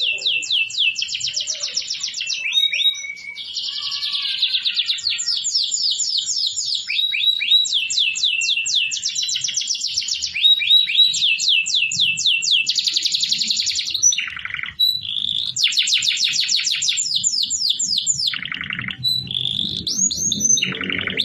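AFSF cross-bred canary singing: long fast trills of rapidly repeated high notes, broken by short pauses and a few changes of phrase.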